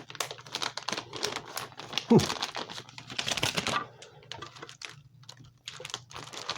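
Packaged fishing lures being handled on a table: quick irregular plastic clicks, taps and rustles of the bait packaging, with a short falling tone about two seconds in.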